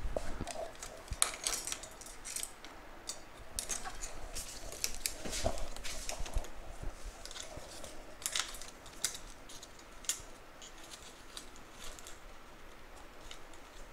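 Bicycle chain clinking and rattling in irregular light metallic clicks as it is threaded through the pulleys of a Wheeltop EDS OX 2.0 rear derailleur.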